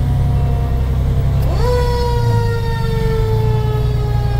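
Fire engine's mechanical siren heard from inside the cab, slowly winding down in pitch, then wound up quickly about a second and a half in and left to wind slowly down again. Underneath runs the steady low rumble of the truck's engine.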